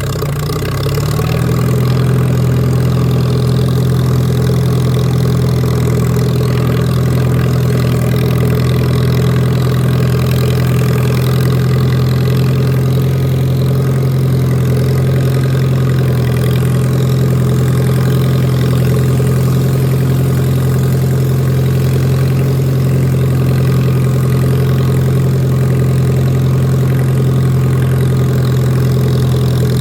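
Lawn mower engine running at a steady speed, its pitch rising briefly in the first second as it comes up to speed.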